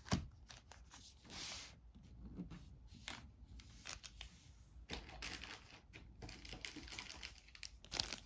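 Faint handling noise: scattered soft taps and rustles as cards and small plastic zip bags of game pieces are moved on a board, with a plastic bag crinkling as it is picked up near the end.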